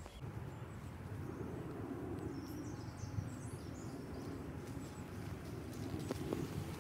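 Footsteps of a person walking on a leaf-strewn park path, a steady low rustle, with a few faint bird chirps about two to three seconds in.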